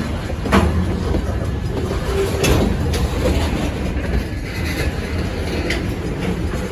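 Stockton Terminal & Eastern freight train rolling by on the rails with a steady low rumble and clickety-clack, with two sharp metallic clanks about half a second and two and a half seconds in.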